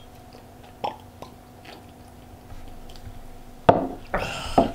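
People drinking at a table: faint sips, swallows and small clicks, then one sharp knock about three and a half seconds in.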